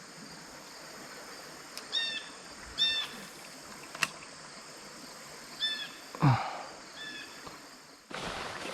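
A bird calling with short, high chirps, four in all in two pairs, over steady outdoor background noise. A couple of faint sharp clicks.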